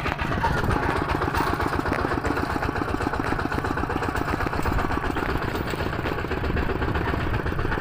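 A small engine running steadily, its rapid firing pulses even throughout.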